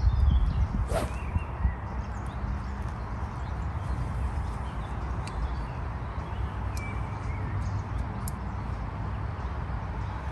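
Wind rumbling on the microphone, with faint birdsong chirping in the background a few times.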